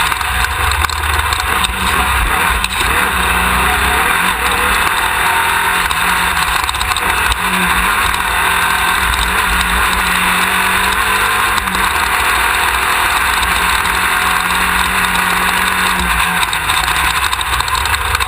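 Class 1600 off-road race buggy's air-cooled VW engine running at speed, heard onboard under a loud, steady rushing noise. A steady engine hum holds through the middle of the stretch.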